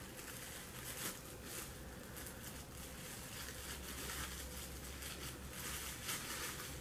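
Faint, irregular crinkling and rustling of plastic wrap handled with gloved hands, pressed and folded around a dye-soaked section of hair.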